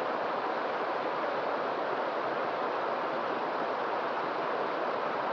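Water from a small waterfall on a stream, rushing with a steady, unchanging splashing.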